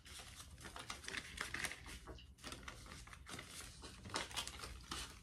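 Paper banknotes being counted by hand: bills flicked and shuffled between the fingers, an irregular run of small papery ticks and rustles.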